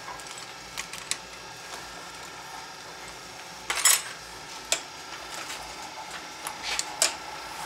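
Metal clinks and clacks from setting up a metal lathe by hand: a chuck key working in the chuck and the lathe's steel handles being moved, with the loudest clatter about four seconds in. A faint steady hum lies under it.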